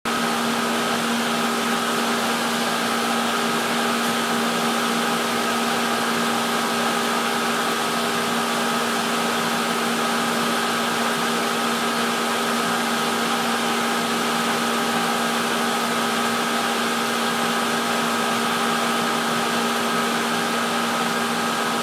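Water gushing out of two PVC return outlets and splashing steadily onto the surface of an aquarium tank, the outlets still above the water line so the flow falls and churns in air bubbles. A steady mechanical hum runs underneath.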